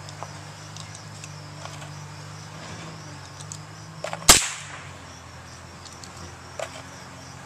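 A single rifle shot about four seconds in: one sharp crack with a short fading tail. A few faint clicks come before and after it, over a steady low hum.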